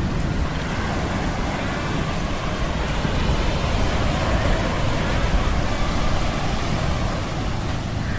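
Steady sea-storm ambience: surf and wind noise with a deep rumble underneath, layered with the hum of metal gears.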